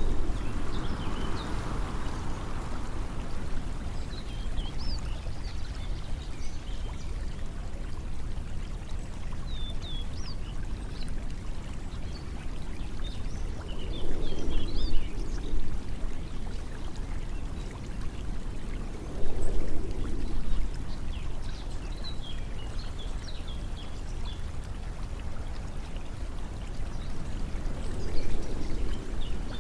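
Water flowing steadily, swelling louder a few times, with small birds chirping high above it throughout.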